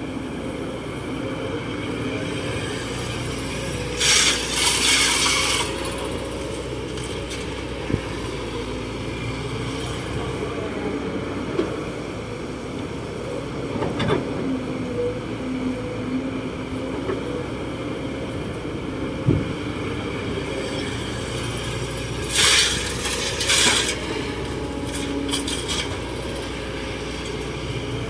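Kobelco SK200-8 Super X hydraulic excavator's diesel engine running steadily under digging load, with scraping and scattered sharp knocks from the bucket working soil and stones. Two short rushes of hissing noise come about 4 seconds in and again after about 22 seconds.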